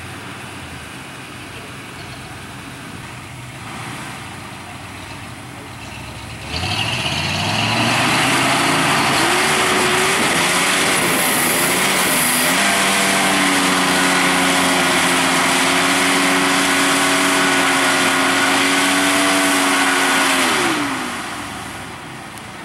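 Truck engine revving hard in a mud-hole tow-strap recovery: after a low rumble it suddenly gets loud, climbs in pitch over a few seconds, and is held at high revs for about eight seconds with tyres churning mud. It then drops back near the end.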